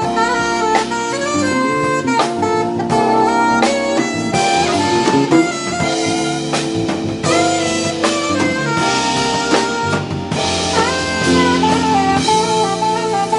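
Live jazz quartet playing: a saxophone carries a bending melody over keyboards, electric bass and a drum kit, with the cymbals growing brighter about four seconds in.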